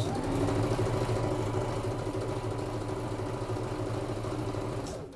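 Electric domestic sewing machine running at a steady speed, stitching through layers of fabric; it starts at once and stops abruptly about five seconds in.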